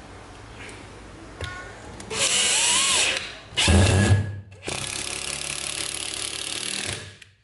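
Hitachi DM2-series cordless impact driver driving a screw into a wooden board. It runs in three goes starting about two seconds in, two short ones and then a steady run of about two seconds that stops just before the end.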